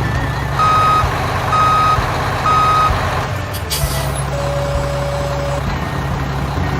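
Heavy truck engine running steadily while a reversing alarm beeps three times, about a second apart. A short hiss follows, like an air brake releasing, and then one longer, lower tone.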